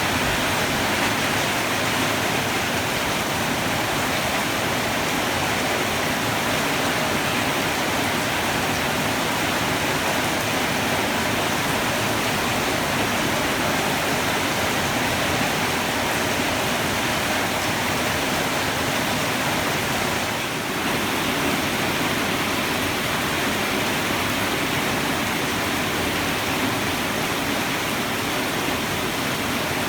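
Heavy rain pouring down, a steady, dense hiss with no thunder.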